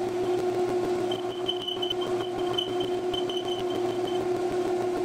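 Metal lathe turning a large bolt while a threading insert cuts its threads: a steady machine hum, with a thin high whine from the cut that comes in about a second in and stops about a second before the end.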